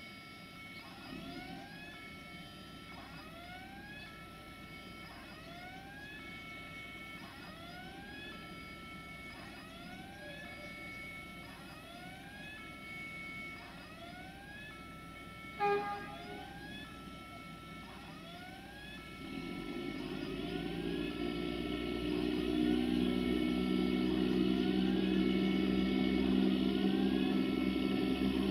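An electronic warning signal repeats a rising sweep followed by a held tone, about every second and a half. There is a brief sharp sound about halfway through. In the last third, a train's low drone grows louder and becomes the main sound.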